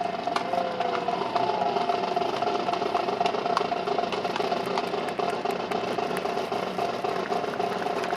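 A steady engine-like hum with a few scattered clicks.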